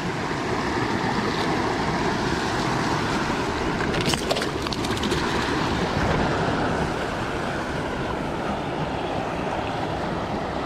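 Creek water rushing steadily over rocks at a riffle and small fall, with a short cluster of sharp clicks and splashes about four seconds in.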